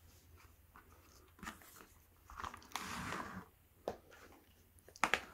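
Faint handling noises of a small plastic parts box on a tabletop: a soft rustle and a few sharp plastic clicks as the brushless motor and its wires are packed into it and the box is set aside.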